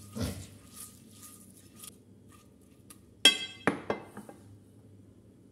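Spatula scraping a spice marinade around a ceramic platter, then a sharp ringing clink of glassware a little over three seconds in, followed by a softer knock.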